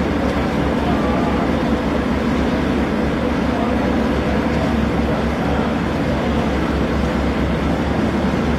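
Small oil tanker's diesel engine running steadily under way, a low rumble with a fast throb.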